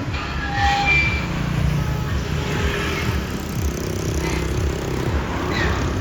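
Heavy vehicle engine running with a steady rumble, with a few short high tones just under a second in.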